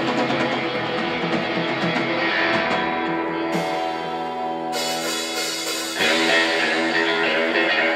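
A live rautalanka band, playing instrumental electric-guitar rock with electric guitars over bass and drums. There is a brief quieter passage of held notes midway, and the full band comes in louder about six seconds in.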